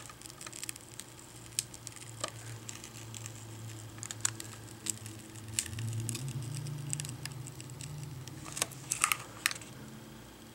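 Small scattered clicks and crackles of plastic and screen adhesive as fingers pry a Chromebook's touchscreen assembly off its LCD panel, loudest in a quick cluster near the end. A low steady hum sits underneath.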